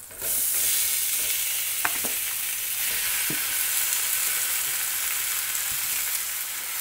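Marinated chicken pieces dropping into a hot pan of fried onions and spice masala in coconut oil, breaking into a steady sizzle just after the start. A few soft knocks as pieces land, around two and three seconds in.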